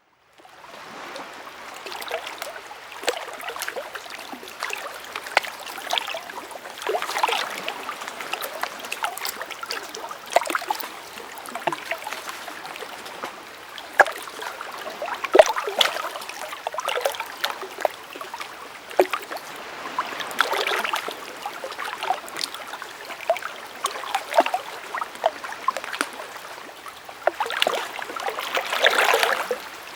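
Water running in a small stream, a continuous rush broken by many small splashes and gurgles, swelling now and then.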